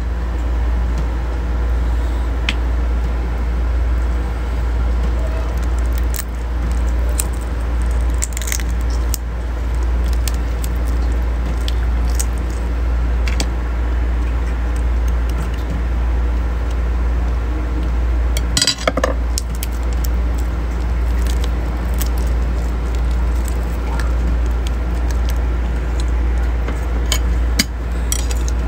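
Small freshwater crab shells being cracked and pulled apart by hand, with a utensil clicking and scraping on a ceramic plate: scattered light clicks and clinks, with a longer clatter about two-thirds of the way in. A steady low hum runs underneath.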